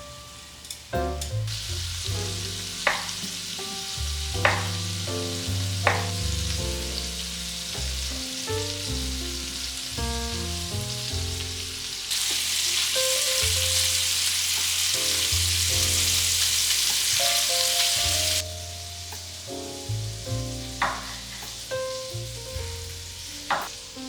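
Food frying and sizzling in a pan, growing louder from about halfway through for several seconds and then dropping off suddenly, with a few sharp taps. Soft background music plays underneath.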